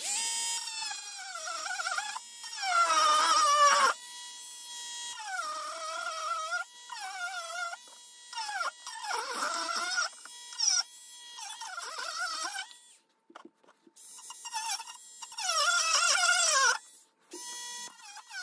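Rotary multi-tool with a grinding disc cutting through the plastic hinge stub of a turntable dust cover: a high motor whine whose pitch sags and recovers as the disc bites into the plastic, dropping out briefly twice in the last few seconds.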